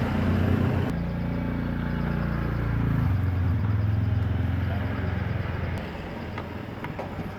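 A motor vehicle's engine running, a low rumble that shifts pitch about a second in and again about three seconds in, then dies down about six seconds in. A few faint clicks near the end.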